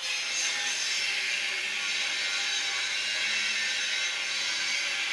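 Felt-tip marker scribbling on paper: a steady, scratchy rubbing that starts suddenly.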